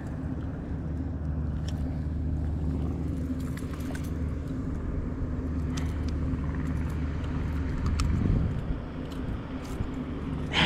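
A motor running steadily with a low, even hum, with a few faint clicks over it and a brief louder rumble about eight seconds in.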